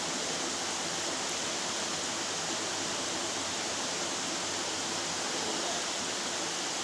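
Steady rushing hiss of heavy rain together with fast-flowing floodwater in a swollen creek.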